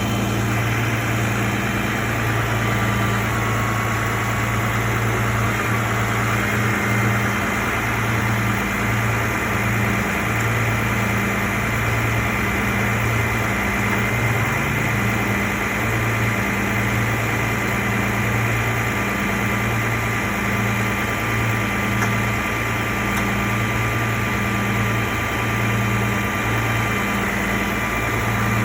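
Car engine idling steadily, a low hum that swells and dips in a slow, even beat.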